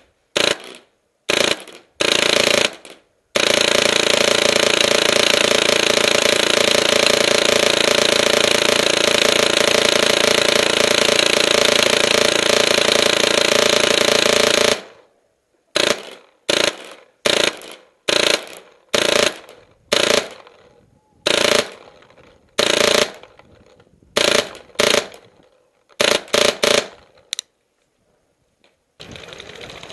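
Tippmann Phenom paintball marker with an X-Board firing full auto: a few short bursts, then one long unbroken burst of about eleven seconds, then a dozen or so short bursts about a second apart.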